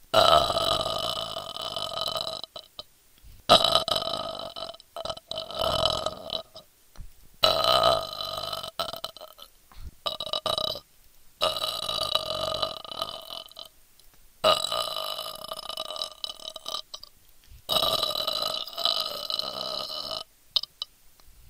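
A person burping on command: a run of about six long, drawn-out burps, each lasting two to three seconds, with short gaps between them.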